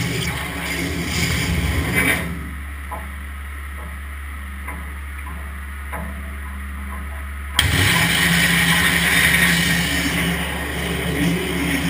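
Abrasive waterjet cutter blasting through plywood with a loud, even hiss. The jet shuts off about two seconds in, leaving only the machine's low hum and a few faint clicks while the head moves to the next hole. About seven and a half seconds in, the jet starts again abruptly and the hiss returns.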